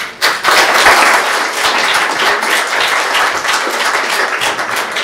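Audience applauding: dense clapping that starts suddenly and keeps up steadily.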